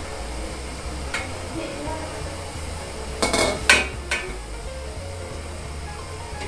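Stainless steel steamer tier and lid clanking against the steamer pot as a tray of siomai is set on it, with a sharp clatter a little past three seconds and another about a second later, over a steady low hum.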